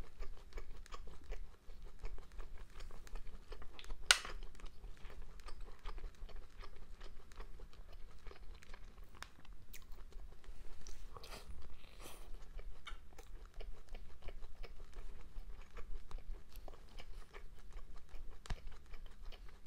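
Close-miked chewing and wet mouth smacks of someone eating pieces of fish roe from a spicy hot pot, with small irregular clicks throughout and one sharper click about four seconds in.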